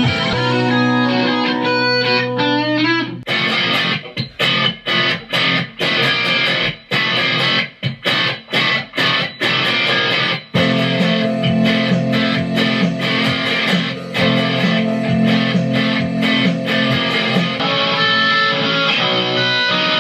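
Electric guitar being played: chords and riffs. For several seconds early on it plays short stabbed chords with brief silences between them, then it settles into held, ringing chords.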